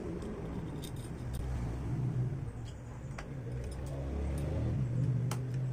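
A low, steady mechanical hum like a running motor, with a few light metallic clicks over it.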